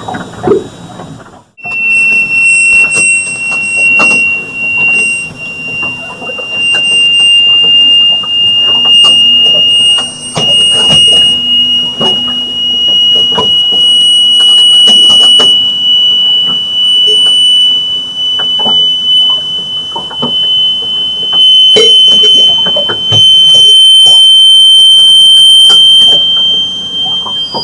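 A piercing, continuous high-pitched whine, one steady tone that slowly creeps up in pitch. It cuts out briefly about a second and a half in, then comes straight back. Its source is unknown; those hearing it liken it to a sonic weapon.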